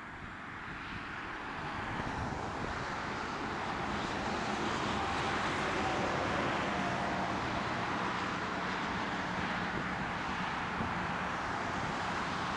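Steady engine rumble of passing traffic, swelling over the first couple of seconds and then holding, with a faint whine near the middle.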